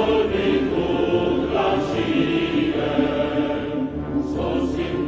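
Music with chant-like singing on long held notes.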